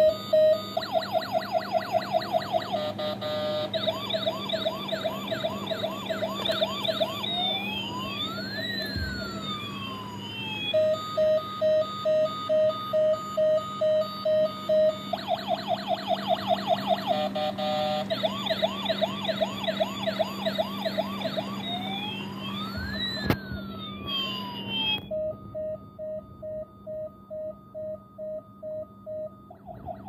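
Toy ambulance's electronic siren sound chip playing its sequence: rapid even beeps, fast up-and-down yelping sweeps, then slow wails that rise and fall. The sequence starts over about halfway through, and the beeps are a little quieter near the end.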